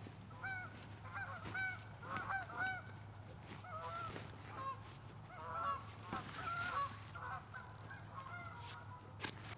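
A flock of geese honking, many short calls overlapping in clusters. A sharp snap near the end.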